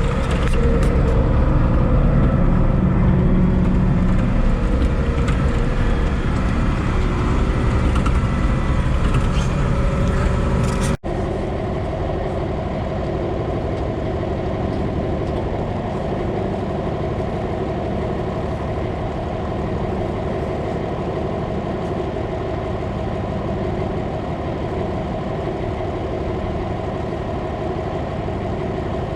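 Tractor engine running steadily; about eleven seconds in the sound cuts off abruptly to a slightly quieter, even steadier engine drone.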